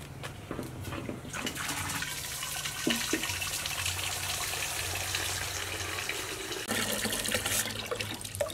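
Water running from an outdoor PVC standpipe tap and splashing over hands into a metal basin, a steady rush that starts about a second in as the tap's red ball valve is opened.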